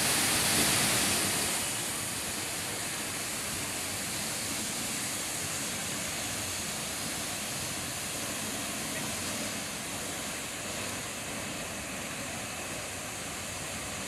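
Steady rush of the Misol-Ha waterfall, a tall plunge into a pool, running with little water in the dry season. It is a little louder in the first second or two, then holds level.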